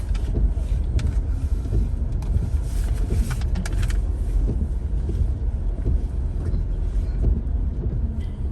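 Car driving in city traffic, heard from inside the cabin: a steady low engine and road rumble with a few light clicks or knocks in the first half.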